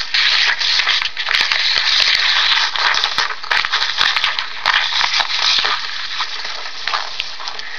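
Paper rustling and crinkling close to the microphone, a dense run of small crackles that eases off somewhat in the last couple of seconds.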